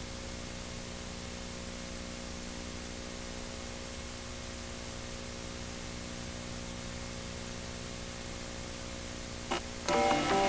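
Steady mains hum with a stack of buzzing overtones under a hiss of tape noise from a blank stretch of digitized VHS tape. A short click comes shortly before the end, and music starts just after it.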